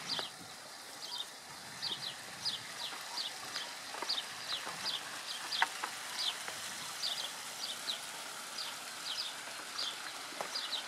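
Small bird chirping over and over: short, high, falling notes, often in pairs, about one to two a second. A light knock comes a little past halfway.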